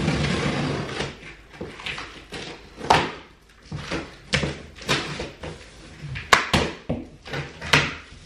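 A knife slitting the packing tape on a large cardboard box, then the box's cardboard flaps being worked open. A dense rasp fills about the first second, followed by a series of sharp cardboard knocks and pops.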